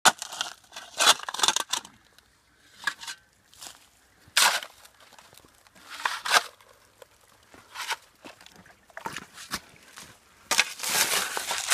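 Steel shovel digging into coal and dirt: irregular scraping, crunching strokes with pauses between them, and a longer scrape in the last second.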